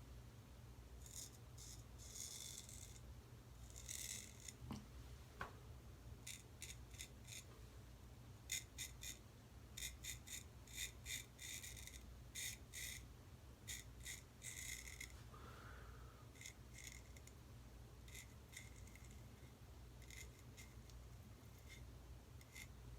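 Boker Treebrand straight razor scraping through lathered stubble in many short, quiet, scratchy strokes, coming in quick runs, over a faint steady low hum.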